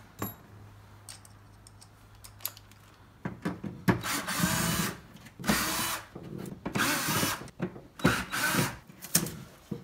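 Cordless power driver with a T15 Torx bit backing out the screws that hold a factory 6x9 door speaker. It runs in several short whirring bursts with a faint motor whine, starting about three seconds in.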